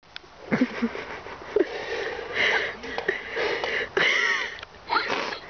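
Stifled giggling: breathy snickers and sniffs through the nose in irregular bursts, with a few short squeaks of voice.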